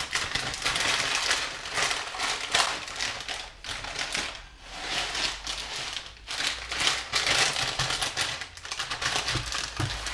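Plastic food packet crinkling and rustling in short, irregular bursts as chopped chili is shaken out of it into a saucepan.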